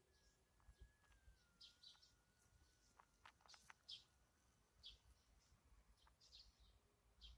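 Near silence with faint, short bird chirps about once a second. A faint, thin steady tone dips slightly about a second in and fades after a few seconds.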